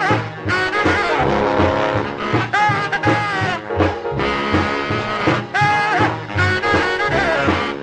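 Boogie-style jump blues instrumental: a saxophone and brass horns play riffing lines with bending notes over a steady beat.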